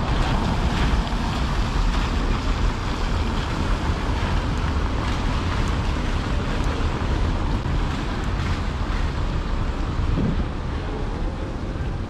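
Steady wet-street noise: tyre hiss from a van crossing rain-soaked cobblestones and traffic on wet roads, with wind buffeting the microphone as a low rumble. It eases slightly near the end.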